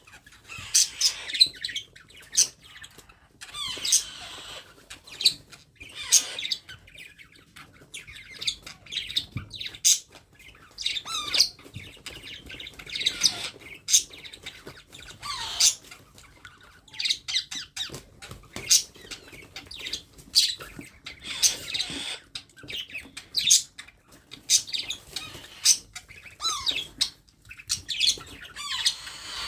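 Baby parrot chirping and squawking over and over in short, high calls, some of them sliding down in pitch.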